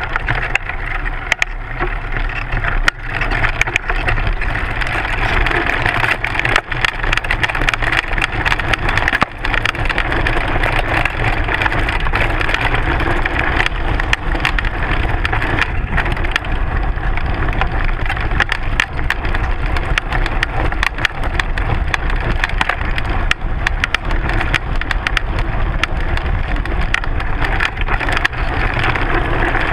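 Mountain bike's front wheel and suspension fork rattling over a rough dirt and rock trail at speed, heard through a GoPro mounted on the fork: a continuous dense clatter of small knocks and vibration.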